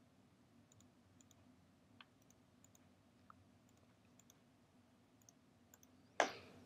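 Computer mouse clicking: a few faint, scattered clicks, then one much louder sharp click about six seconds in.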